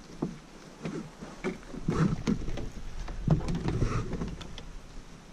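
Irregular knocks and thumps against a plastic kayak hull while a caught fish and the fishing rod are handled in the cockpit. The loudest thumps come about two seconds in and again about three and a half seconds in.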